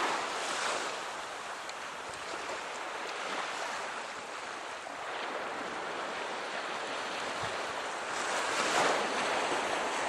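Surf washing on a sandy beach, mixed with wind gusting over the microphone; the noise swells about half a second in and again near the end.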